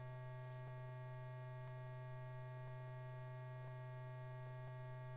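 Steady electrical hum from the old film soundtrack, with a faint tick about once a second.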